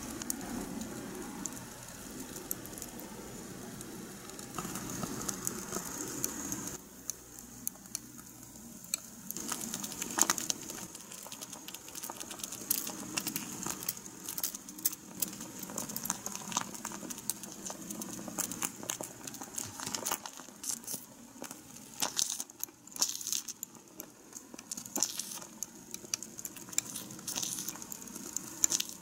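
Small fork and tiny mesh strainer clicking and scraping against a miniature saucepan as macaroni is tipped into white sauce and stirred, over a faint crackling haze. The clicks come irregularly, many in a row.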